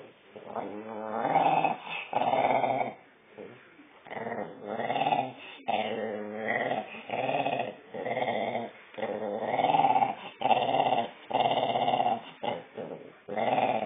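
Small dog growling at another dog lying beside it in its basket: a string of drawn-out, rising and falling growls, each up to about a second long with short breaks. A warning to the other dog to move off its spot.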